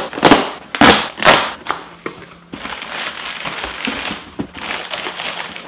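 Taped cardboard box being torn open in three loud ripping strokes, then crumpled brown kraft packing paper rustling and crinkling as hands dig through it.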